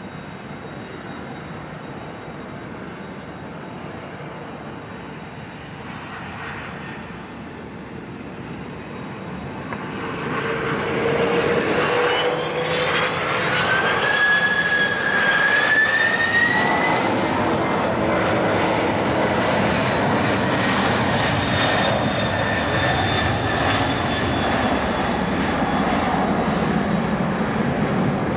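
Boeing 767-300's two General Electric CF6-80C2 turbofans throttled up to takeoff thrust during a touch-and-go. A steady rumble gives way, about ten seconds in, to a much louder roar with a rising whine as the jet accelerates down the runway and lifts off.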